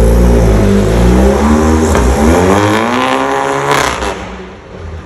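Volkswagen Polo 1.4 turbo petrol engine, loud through a tuned exhaust with a downpipe and mostly straight pipe. The engine note falls for about two seconds, then revs up and peaks in a short sharp crack, and fades as the car pulls away.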